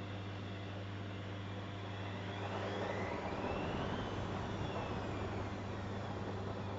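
Zanussi Jetsystem Turbodry washing machine running with a steady hum. From about two and a half seconds in, a swell of motor noise with a whine rises in pitch and then falls away again, as the motor speeds up and slows.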